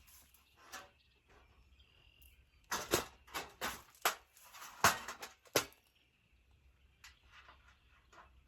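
A string of sharp knocks and clicks from a raised-bed kit's panels and bolts being handled while a bolt is fitted, bunched between about three and six seconds in, with a few fainter taps later.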